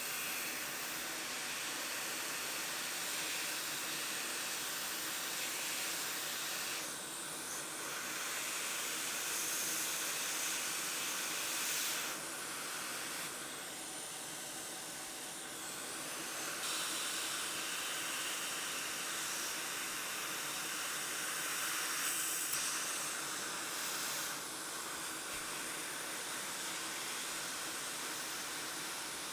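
ATTEN ST-862D hot air station blowing air through its handpiece nozzle: a steady hiss of rushing air that dips and swells a few times.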